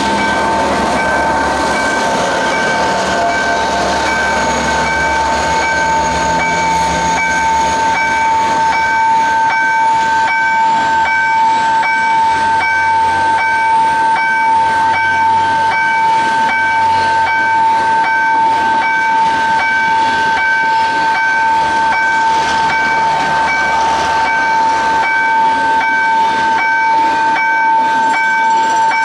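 Level-crossing warning alarm sounding without a break as a steady electronic tone with a pulsing higher note, while a passenger train's carriages roll past with wheel rumble and clatter over the rail joints.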